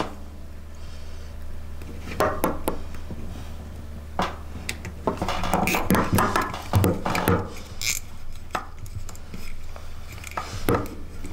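Plastic cable ties being pulled tight around wiring on a motorcycle tail tidy bracket. Scattered clicks and knocks come from the hard plastic and metal parts being handled on a wooden bench, with a denser run of them a couple of seconds in and again from about five to eight seconds in.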